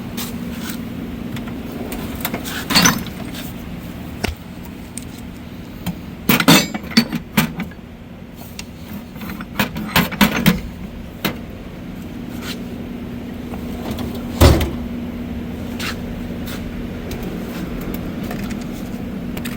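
Metal hand tools, ratchets, being set down and knocking against one another with sharp clanks, several in quick succession, the loudest about two-thirds of the way through, over a steady low hum.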